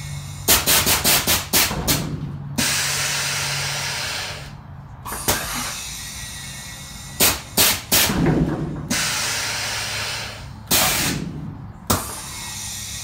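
Air-ride suspension on a Chevy C10 being worked from its AVS switch box: quick clicks from the air valves, then long hisses of air as the bags are filled and dumped, with the truck dropping to the ground near the end. A steady low hum runs underneath.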